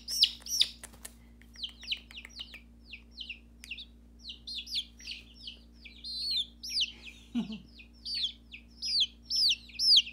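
Baby chicks peeping: a steady run of short, high, down-slurred peeps, a few every second, with some clicks near the start.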